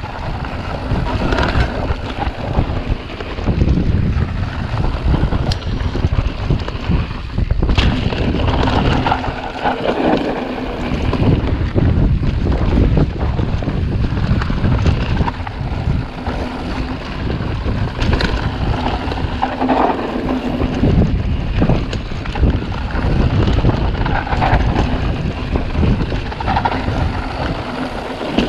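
Wind buffeting the camera microphone on a fast mountain bike descent, over the steady rumble of knobby 29-inch tyres on a dirt trail, with a few sharp knocks from the bike over bumps.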